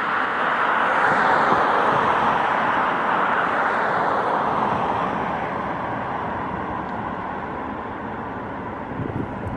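A broad rushing noise of a passing vehicle, loudest about a second and a half in and fading slowly over the following seconds. Wind buffets the microphone near the end.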